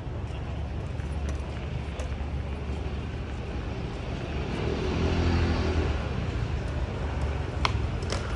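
Steady low hum of city road traffic, swelling as a vehicle passes about five seconds in, with a couple of sharp clicks near the end.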